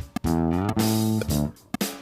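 Band music led by guitar and bass playing short, choppy rhythmic stabs, with one note sliding up and held in the middle.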